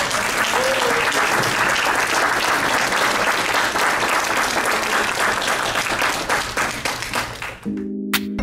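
Audience applauding steadily. About seven and a half seconds in, the applause cuts off and outro music of held chords begins.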